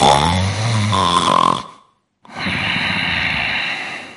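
A person snoring heavily, two loud snores about half a second apart: the first a low, buzzing one about a second and a half long, the second breathier and hissier, about two seconds long. This is the kind of snoring the report links to obstructive sleep apnea.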